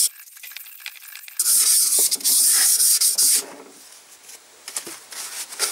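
Abrasive rubbed against the scored bore of a Panhard M5-type engine cylinder to smooth out the scratches: a harsh rasping hiss from about a second and a half in until past three seconds, with quieter scraping before and after.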